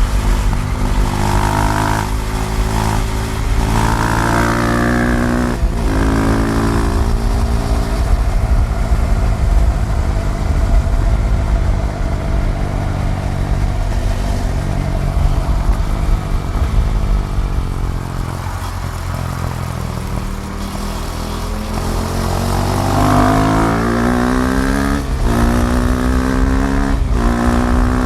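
KTM Duke 390's single-cylinder engine under way. It revs up through the gears with brief dips at each shift, holds a steady cruise, eases off, then accelerates hard again through more shifts.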